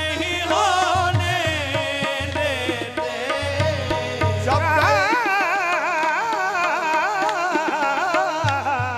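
Qawwali singing with harmoniums: voices in ornamented, wavering melodic lines over steady held harmonium chords, a higher voice entering about four and a half seconds in. A low drum beat underneath drops out about five seconds in and returns near the end.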